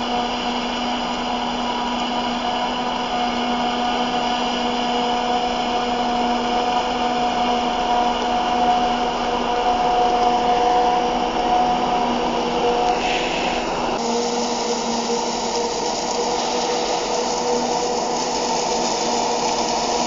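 Claas Jaguar forage harvester chopping maize, with the tractor hauling the silage trailer alongside: a steady machine drone with a steady high whine. The tone changes about 14 seconds in.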